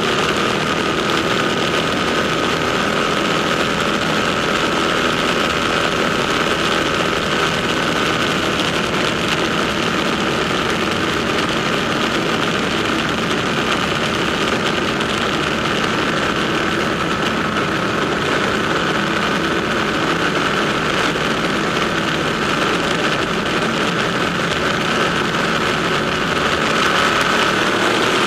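Ducati motorcycle engines running steadily in a tunnel, their sound echoing off the walls.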